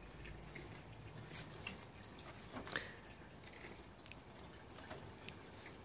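A puppy's claws clicking and scuffing faintly on paving slabs as it moves about, a few scattered light clicks.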